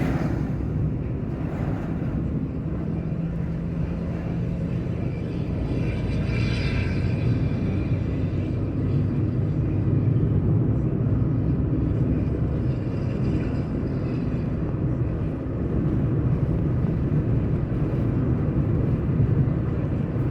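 Volkswagen Constellation truck's diesel engine running steadily on the road. A brief hiss rises and fades about six seconds in.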